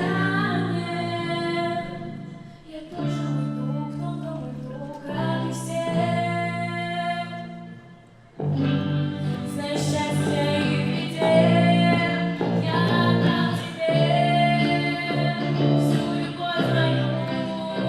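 A song: a singer holding long notes over an instrumental accompaniment. The music fades low about 8 seconds in, then comes back suddenly fuller and louder.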